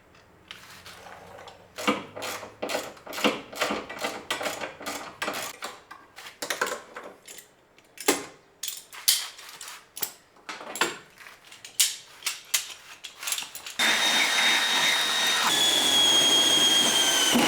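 A string of short, irregular clicking and rasping strokes from work on the Jeep's bolts. Near the end, a power drill runs steadily for about three and a half seconds, its whine sinking slightly in pitch under load.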